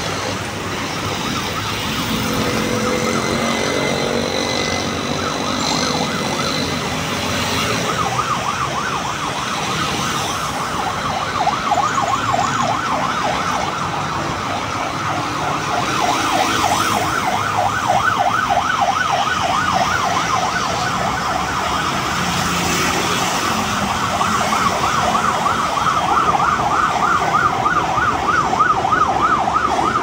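Road traffic with motorcycles and cars passing. From about eight seconds in, an emergency-vehicle siren sounds a fast yelp, its pitch rising and falling several times a second, and grows a little louder toward the end.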